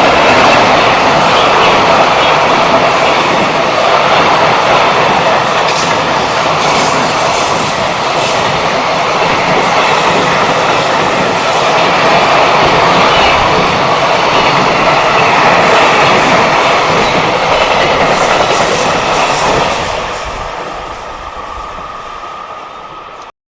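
A freight train runs past at speed, its wagons' wheels rolling loudly over the rails. The noise fades over the last few seconds, then cuts off suddenly.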